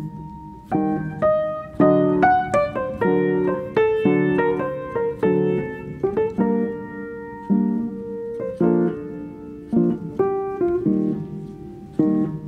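Background piano music: a slow melody of single struck notes and chords, each fading after it is played.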